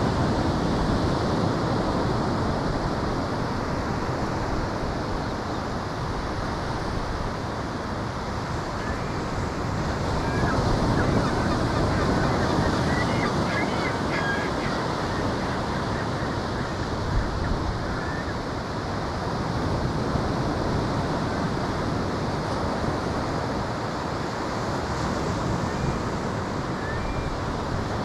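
Ocean surf and wind making a steady rush that swells and eases every few seconds.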